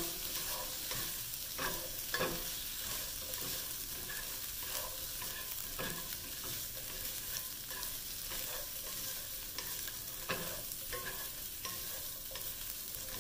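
Fried tofu cubes sizzling in oil in a wok as they are stirred with a wooden spatula and a spoon, with a few scrapes and knocks of the utensils against the pan now and then.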